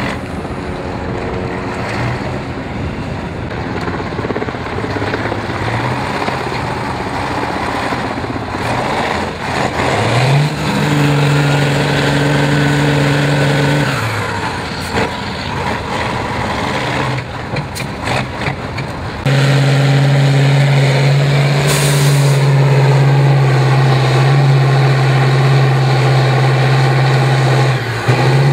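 Tatra 8x8 trial truck's diesel engine working hard under load, revving up about a third of the way in and held at high revs for a few seconds. In the last third it runs steady and loud at high revs as the truck climbs a steep muddy slope.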